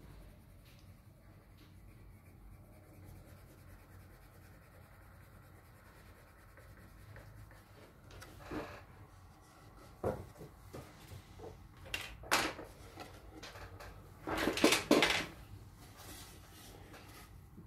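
Faint scratching of a coloured pencil shading on card, then desk-handling noises: several sharp knocks as pencils are set down on the wooden drawing board, with the loudest clatter and rustle a little before the end.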